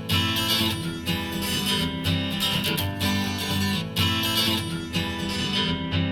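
Music: acoustic guitar strumming chords in a steady rhythm, the instrumental opening of an acoustic pop song, with no voice yet.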